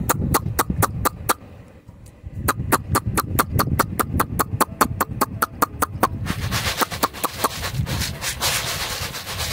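A person calling chickens with a fast, even run of mouth clicks, about five a second, in two runs with a short pause between. Near the end this gives way to a rustling hiss of wheat grain being scattered.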